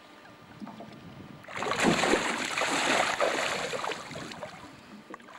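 A big fish thrashing at the surface right beside a boat, splashing water for about three seconds starting a second and a half in, then fading.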